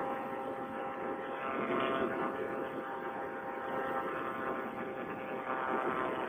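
Paramotor trike's Vittorazi Moster single-cylinder two-stroke engine and propeller running steadily in cruise flight. It is heard thin and muffled through a Bluetooth headset microphone.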